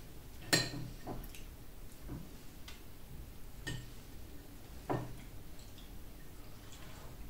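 Metal cutlery clinking against a dinner plate as chicken is cut with a fork and knife: about five sharp clinks spread out, the loudest about half a second in.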